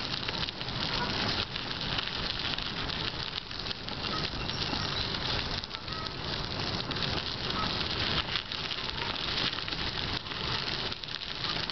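Bicycle tyres rolling over a fine-gravel trail: a steady crackling hiss.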